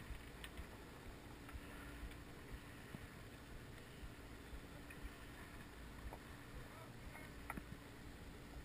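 Faint, even low rumble of wind and water around a small boat, with a few light clicks.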